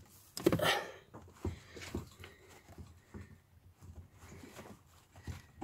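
Soft clicks, light knocks and a brief rustle as the plastic in-tank fuel pump module of a Skoda Octavia Mk3 is eased up out of the diesel tank opening against absorbent pads.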